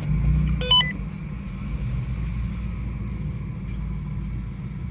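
An off-road truck's engine running with a steady low rumble. A brief electronic beep of a few short tones comes about a second in.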